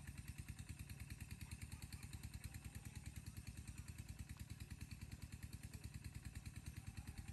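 A small engine idling faintly and steadily, with an even beat of about eight pulses a second.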